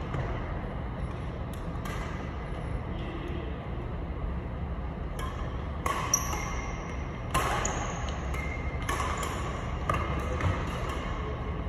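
Badminton rally: sharp racket-on-shuttlecock hits about once a second in the second half, with short high squeaks of sneakers on the wooden court floor, over a steady low hum in the hall.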